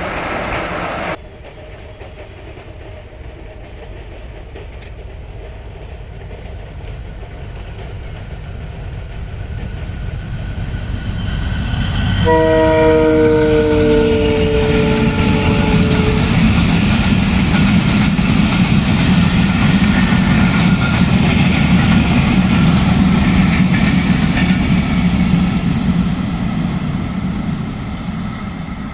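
WDM-3A diesel locomotive sounding its multi-tone horn for about four seconds, the chord falling slightly in pitch as it goes by. The rumble and wheel clatter of the express's coaches passing follow and ease off near the end.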